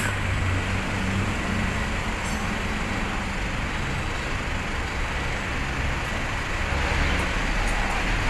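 Steady low rumble of running motor vehicles, with a constant hiss over it.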